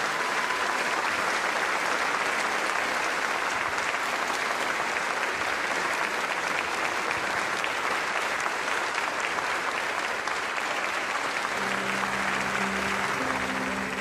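Audience applauding, a dense steady clapping that holds throughout. Near the end, soft music with sustained low notes comes in underneath.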